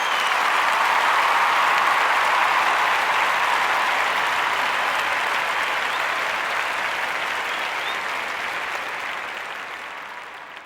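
Crowd applause, a dense steady clapping that slowly fades out near the end.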